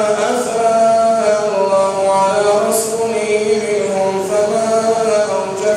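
A man reciting the Quran in Arabic in a slow melodic chant, holding long notes that glide gently up and down in pitch.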